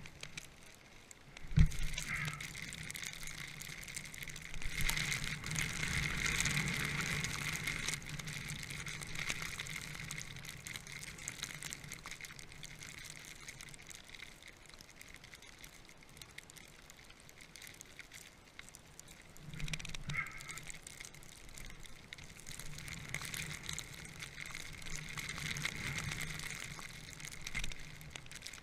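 A rider sliding through deep powder snow: a sharp thump about a second and a half in, then two long swells of hissing snow noise with a quieter stretch between them.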